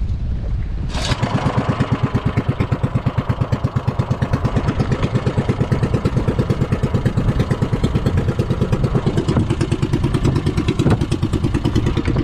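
A small outrigger fishing boat's engine running with a steady, rapid putter. It comes in abruptly about a second in, over the rush of wind and water against the hull.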